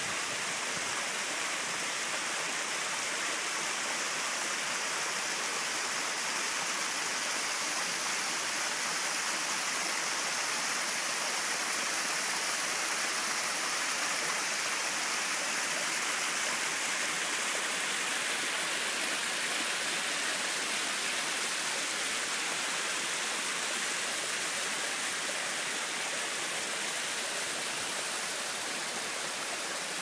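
A small cascade of water splashing down a rocky mountain stream bed, a steady rushing hiss.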